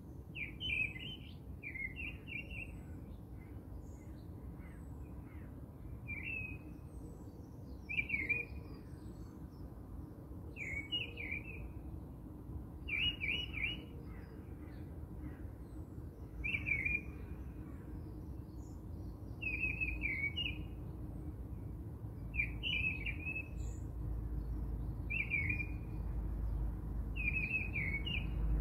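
A songbird repeating a short chirping phrase every two to three seconds, over steady low background noise.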